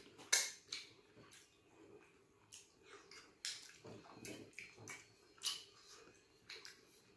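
Close-up eating sounds: wet smacks and chewing as soup-soaked starch, fish and turkey are eaten, coming as irregular sharp clicks about once or twice a second, the loudest just after the start.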